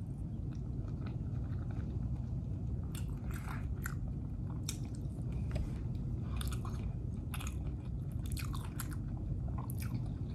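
Close-up chewing of a mouthful of shrimp in balado chilli sauce: irregular soft wet mouth clicks and smacks, over a steady low hum.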